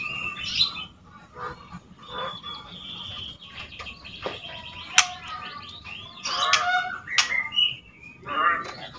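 Juvenile white-rumped shama, about two months old, giving scratchy chattering calls and short whistles, with a couple of sharp ticks: a young bird learning its song.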